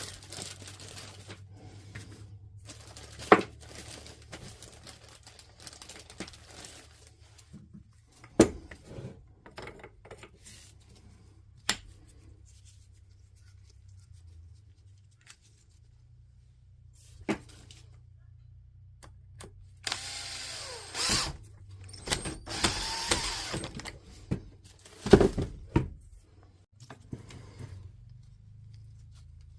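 Small parts and tools being handled on a workbench: scattered knocks and clicks over a low steady hum, with a few seconds of dense noise about twenty seconds in.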